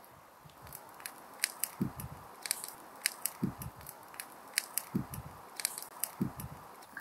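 Wood fire under a cooking pot crackling, with sharp snaps and pops coming several times a second. Four low, dull thumps come in between, about a second and a half apart.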